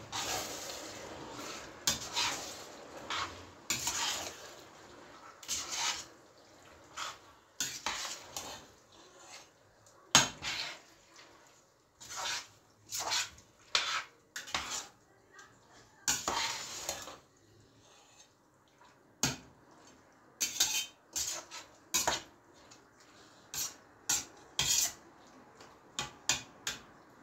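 Metal spoon knocking and scraping against the inside of a stainless steel saucepan as chopped tomatoes are stirred, in many short, irregular strokes.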